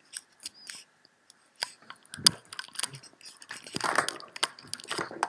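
Computer mouse clicking: scattered sharp clicks, with crunchy crackles that grow denser about three and a half seconds in.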